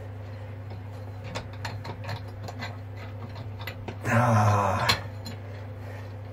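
Small metallic clicks and taps as the boat's wire steering cable and quadrant are handled, over a steady low hum. A short strained vocal grunt comes about four seconds in.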